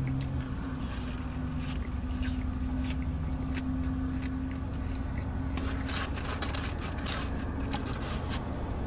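Someone chewing McDonald's french fries, with many small wet clicks, over the steady low hum of a parked car running.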